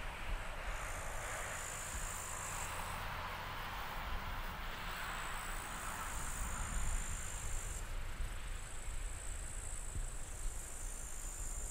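Crickets trilling, high and thin, in overlapping bouts of one to two seconds that stop and start again, over a faint steady hiss and a low rumble.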